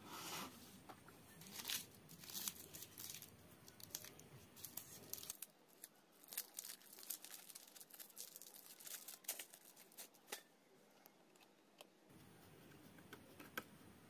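A small foil packet crinkling and being torn open by hand, with many short crackles and rustles.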